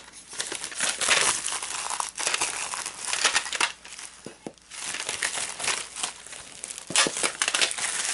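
Clear plastic shrink-wrap being peeled and torn off a metal pencil tin, crinkling and crackling irregularly, loudest about a second in and again near the end.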